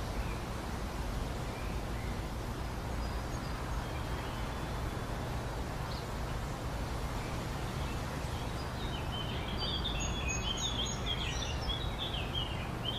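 Outdoor ambience: a steady low rumble of background noise with small birds chirping, the chirps busiest in the last few seconds.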